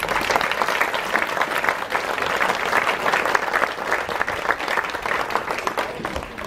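Concert audience applauding as a song ends: many hands clapping together, starting abruptly and dying away near the end.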